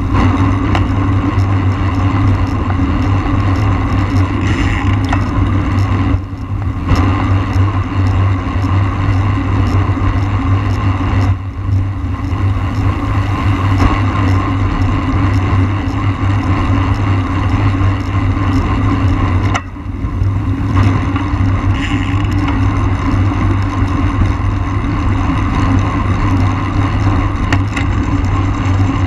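Steady wind rush on the microphone of a camera mounted on a road racing bike at race speed, with a few brief lulls.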